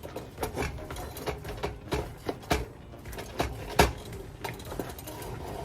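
A metal utensil knocking and scraping against a cooking pot: a run of irregular clicks and knocks, the loudest about four seconds in.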